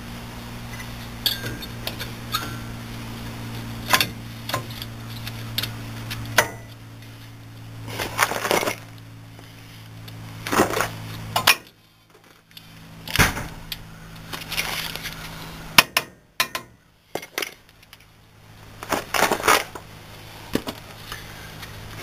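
Scattered metallic clinks and knocks as new front brake pads are handled and seated into the caliper bracket of a 1999 Ford F-250 Super Duty. A steady low hum stops about halfway through.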